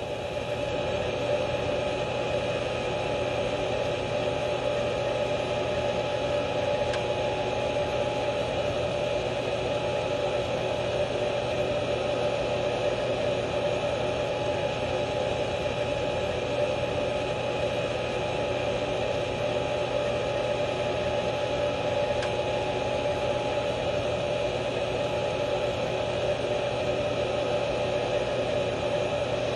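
A steady, unchanging noisy drone with a faint hum in it, at the same level throughout.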